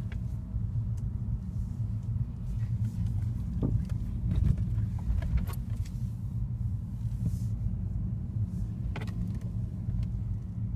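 Steady low rumble of a car driving, heard from inside the cabin, with a few light clicks near the middle and another near the end.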